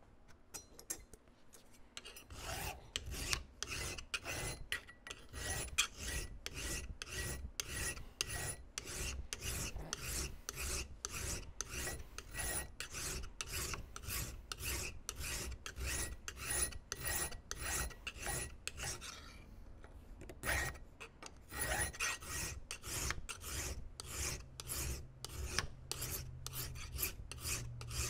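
Hand file cutting metal bar stock held in a vise, in steady strokes about two a second, cutting on the push stroke only. The filing stops briefly about two-thirds of the way through, then starts again.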